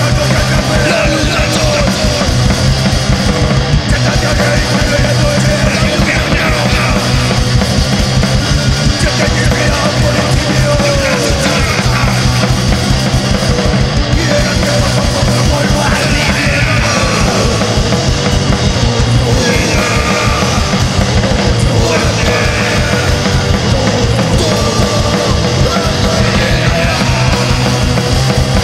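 Loud, fast punk rock song: distorted guitars over rapid, steady drumming, with vocals coming in and out over it.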